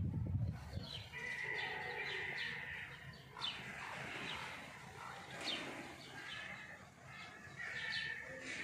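Small birds chirping repeatedly, many short downward-sliding calls over a continuous twittering. A low muffled rumble sounds in the first second.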